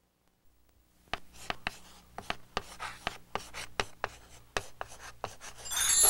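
Chalk writing on a blackboard: quick taps and short scratching strokes, starting about a second in. A bright chime rings out right at the end.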